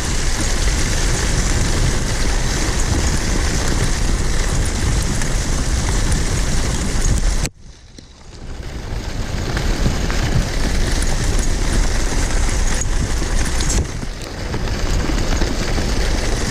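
A kicksled's runners hissing and scraping steadily over a snow trail, with wind rumbling on the microphone. The noise cuts out sharply about halfway through and builds back over a couple of seconds.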